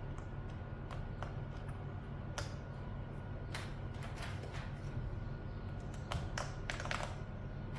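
Mechanical keyboard with PBT dye-sub keycaps being typed on sparsely: single key presses and short runs of two or three, clustered about a second in, around two and a half to four and a half seconds in, and again near the end. A steady low hum runs underneath.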